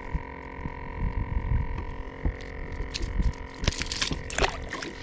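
A small spotted sea trout is dropped back into the water from a kayak: a short burst of splashing about four seconds in. Under it, wind rumbles on the microphone and a faint steady tone runs on.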